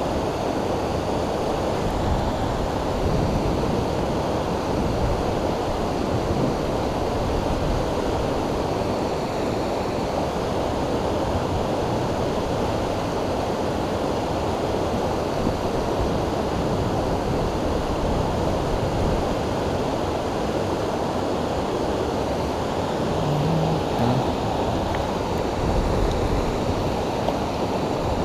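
Steady rush of a fast-flowing creek running over rocks and through riffles.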